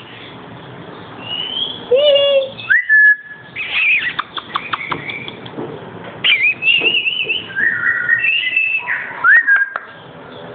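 Black-capped lory calling: a string of loud whistled notes that glide up and then hold, with warbling trills, and a quick run of clicks about four seconds in.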